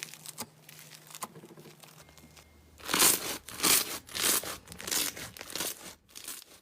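Slime being squeezed and worked by hand, giving a series of loud crackling, crunching squishes about every half second to second from about three seconds in, after a stretch of faint small clicks.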